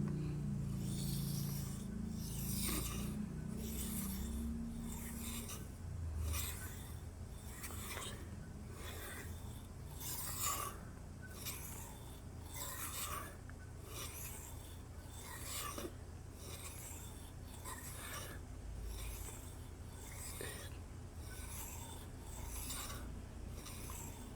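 Steel tanto blade of a Cold Steel Kobun knife being sharpened on a whetstone: a regular series of short, faint scraping strokes, about one a second.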